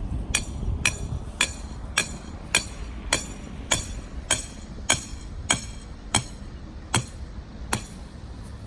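Hammer driving a stake into the ground to set a fence string line: about thirteen steady blows, roughly two a second, each with a short ring.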